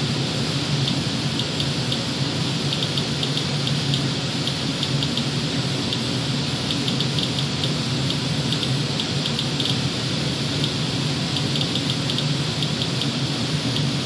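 Inspector Alert radiation monitor clicking at random, a couple of short high ticks a second in uneven clusters as it counts about 150 counts per minute off a home HVAC air filter, which the owner takes as radioactive contamination in the filter. Under it runs a steady rushing hum.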